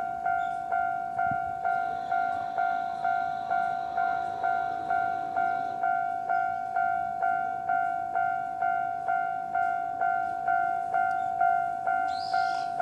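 Japanese railway level-crossing warning alarm ringing steadily, an electronic two-tone ding repeated about twice a second. A brief high hiss comes near the end.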